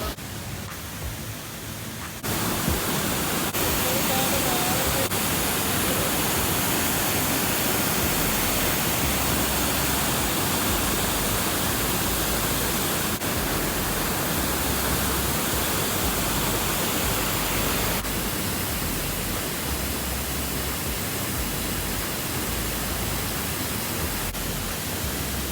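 Waterfall: water rushing down over rocks, a steady loud hiss that jumps in level a couple of seconds in and shifts slightly a few more times.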